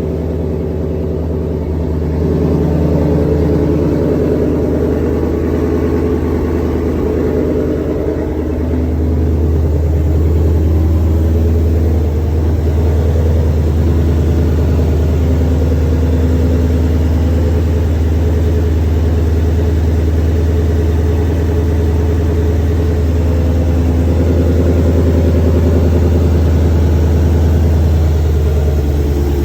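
Supercharged 5.2-litre V8 of a 2022 Shelby GT500 with a freshly fitted ported blower, idling steadily and loudly.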